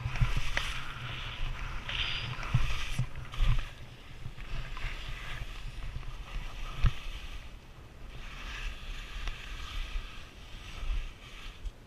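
Skis hissing and scraping over packed snow and moguls, with wind rumble on the camera microphone. Several sharp knocks, the loudest about seven seconds in, as the skis hit bumps.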